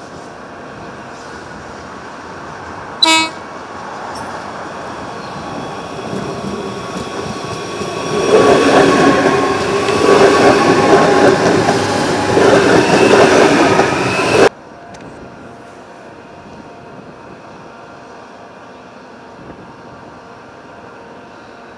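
A commuter train gives one short horn toot about three seconds in, then grows louder as it runs close past, its wheels and running gear loud for several seconds before the sound cuts off suddenly. After that only a quieter steady background hum remains.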